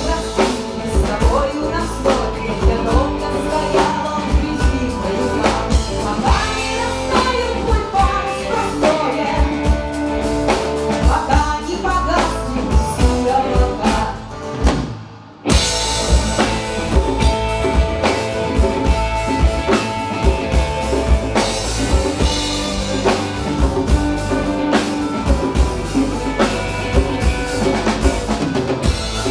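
Folk-rock band playing live: drum kit, bass, electric and rhythm guitars and violin, with a steady drum beat. About halfway through the music drops away and fades briefly, then the full band comes back in sharply.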